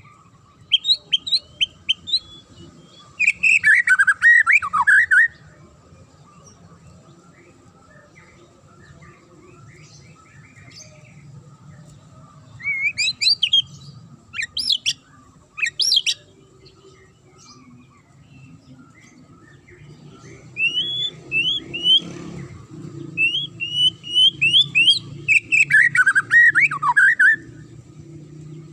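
White-rumped shama (murai batu) singing: bursts of sharp, quick whistled notes and falling warbled phrases, separated by pauses of a few seconds, over a faint steady hum.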